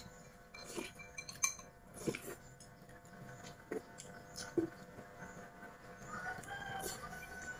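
Chopsticks and spoons clicking against porcelain bowls while people eat porridge, with chickens faintly calling in the background and one drawn-out call near the end.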